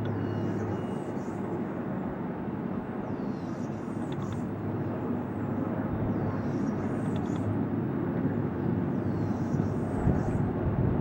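A steady engine drone with a low hum, heard outdoors, and short high calls, likely a bird's, repeating about every one and a half to two seconds.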